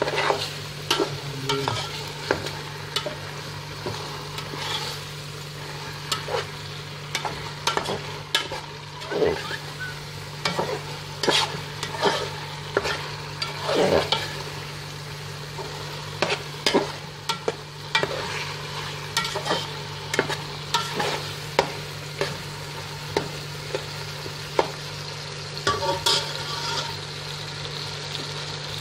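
A metal spatula scraping and clinking irregularly against a metal pot as it stirs fish pieces in a tomato mixture, with a steady sizzle of frying underneath.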